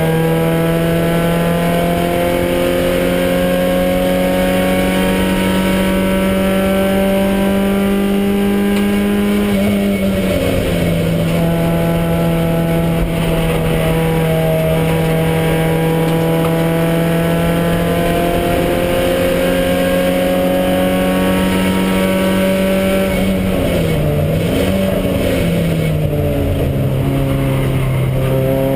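Porsche 924 race car's four-cylinder engine heard from inside the cabin, pulling hard with its pitch climbing slowly. The pitch drops at an upshift about a third of the way in, then falls and wavers through downshifts with throttle blips near the end before climbing again.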